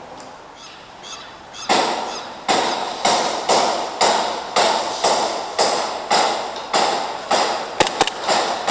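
Footsteps crunching over gravel or debris at about two steps a second, starting about two seconds in. Near the end come three short sharp cracks in quick succession.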